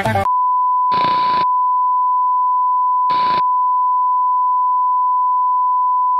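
The steady beep of a TV colour-bars test tone, a single unchanging pitch held throughout. Two short hisses of static cut across it, about a second in and about three seconds in.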